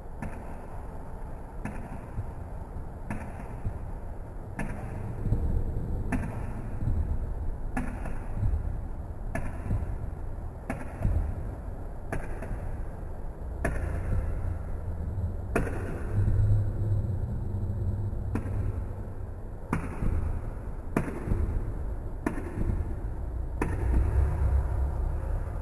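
Wire whisk stirring flour and wet ingredients in a glass bowl for naan dough: scratchy scraping with a short knock about every one and a half seconds, over a low rumble.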